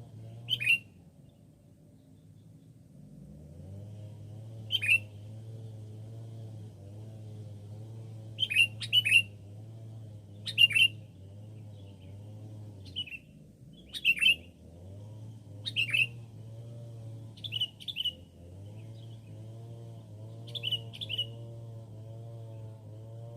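Sooty-headed bulbul (kutilang) calls: short, sharp chirps, singly or in quick pairs and triples, repeating every two seconds or so. Underneath runs a steady low hum.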